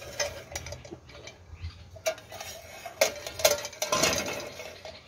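Aluminium mess tins knocking and sliding on a steel grill grate: a few sharp metallic clinks with a short ring, about two and three seconds in, then a scrape near four seconds.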